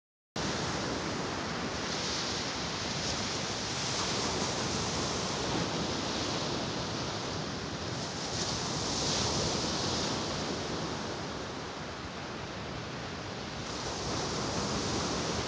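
Ocean surf washing onto a beach: a steady rush of breaking waves that swells about every six seconds.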